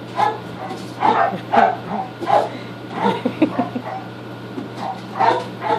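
An animal giving short, sharp, high calls over and over, eight or nine in all, over a steady low hum.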